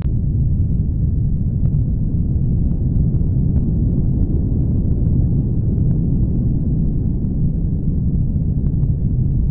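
A steady, deep rumble that starts abruptly, with a few faint ticks scattered through it.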